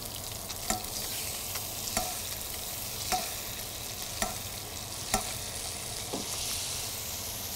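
Halibut frying in melted butter, sizzling steadily, with a metal spoon clinking against the frying pan about once a second as the butter is spooned over the fish to baste it.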